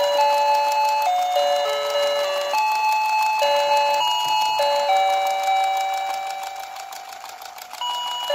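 Battery-powered toy appliance playing its electronic tune: a simple melody of plain beeping notes stepping up and down. Near the end one long note fades away and the tune starts again.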